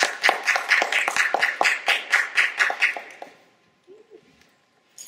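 Audience applauding with many quick hand claps that thin out and stop about three seconds in. A single sharp knock follows near the end.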